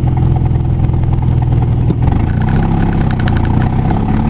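Vehicle engine running while driving, heard from inside the cab as a steady low drone. About two seconds in, the engine note shifts.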